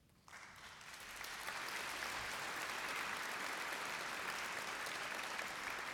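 Audience applauding. It starts about a quarter second in, builds over the first second or so and then holds steady.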